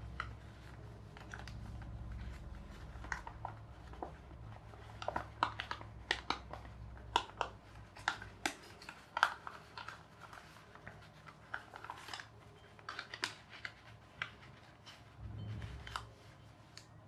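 A sheet of printed paper being folded and creased by hand into an origami boat: irregular crisp crinkles and rustles as it is pressed and flattened. A low rumble sits underneath for the first several seconds, then fades away.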